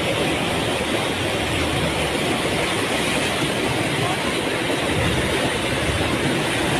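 A torrent of muddy floodwater rushing, a loud steady rush with no breaks.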